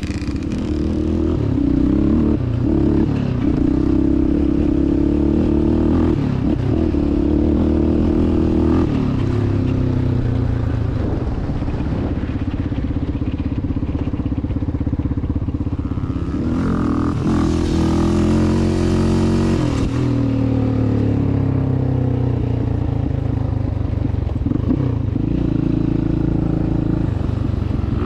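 Yamaha Raptor 700R ATV's single-cylinder four-stroke engine heard from on board as it is ridden, revving up and down with its pitch rising and falling repeatedly. A few seconds of hiss join it past the middle.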